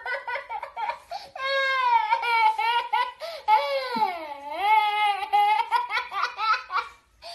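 A toddler laughing hard: high-pitched squealing laughs in runs of short bursts, with a brief pause near the end.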